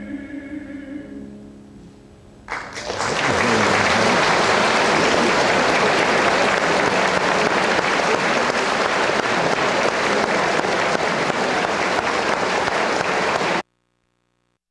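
The last notes of a song for voice and piano die away, then a concert-hall audience breaks into applause about two and a half seconds in, loud and steady, until the sound cuts off abruptly near the end.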